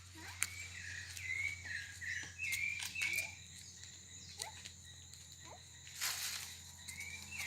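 Quiet outdoor ambience with a run of short, high chirps from a small animal, one after another for a couple of seconds, falling silent, then starting again near the end.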